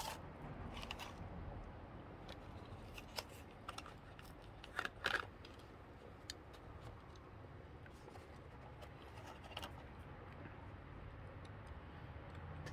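Faint scattered clicks and snips, the loudest a quick pair about five seconds in, over a low steady hum.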